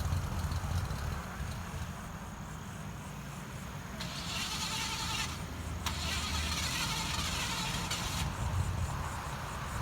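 A car engine cranking on its starter without catching, a failed start. A hiss comes in over the low churning for a few seconds in the middle.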